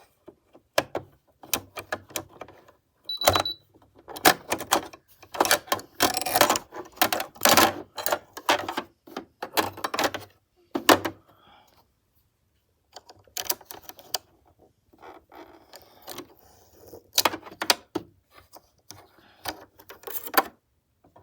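Small metal sewing-machine parts being handled: irregular clicks, taps and rattles as the needle plate, bobbin case and bobbin are worked loose and fitted, with a brief pause about twelve seconds in.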